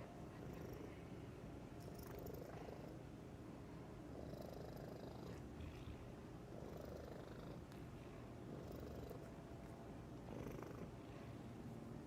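Domestic cat purring softly, a faint low rumble that swells gently about every two seconds with its breathing.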